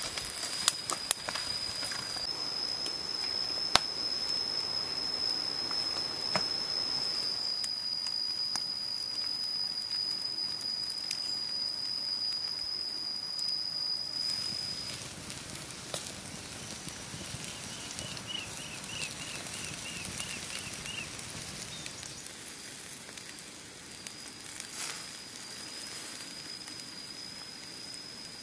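Beef ribs on bamboo skewers sizzling over charcoal embers, with a steady hiss and a few sharp crackles and pops in the first seconds. A steady high whine runs through the first half and returns near the end, and a quick run of high chirps comes in the middle.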